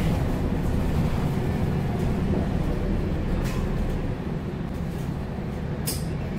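Inside a MAN NL323F diesel city bus under way: steady engine drone and road noise, easing slightly over the last couple of seconds. Two brief hisses, about three and a half seconds in and near the end.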